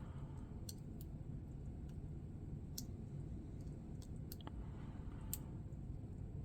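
Faint, sparse metallic clicks of a lock pick and tension wrench working the pin stack inside a Master Lock 570 padlock, about seven clicks spaced irregularly with the loudest about five seconds in, over a low steady hum.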